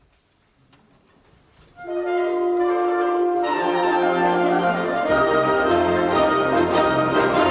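Symphonic wind band starts playing about two seconds in, after a faint, quiet stretch: sustained brass and woodwind chords over a moving bass line.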